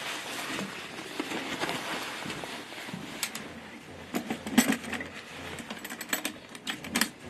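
Tissue rubbing on the clear plastic dome of a simulated-spacesuit bubble helmet, then a series of sharp clicks and knocks as the helmet is handled and fitted at the neck.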